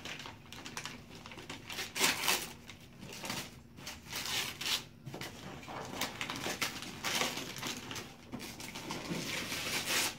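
Wrapping paper being torn and crinkled off a gift box in irregular ripping bursts, the loudest about two seconds in.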